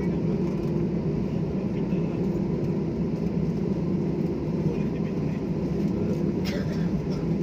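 Steady airliner cabin noise heard inside the cabin after landing: a low, even rumble and hum from the idling engines and air conditioning, with a faint steady tone. A brief click about six and a half seconds in.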